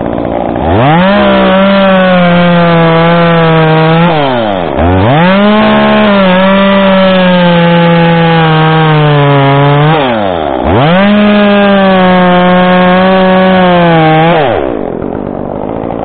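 Stihl chainsaw revved to full throttle three times for cuts of about four to five seconds each, cutting into a cherry limb. The pitch sinks slowly during each cut, and the saw drops back to a low idle between cuts and near the end.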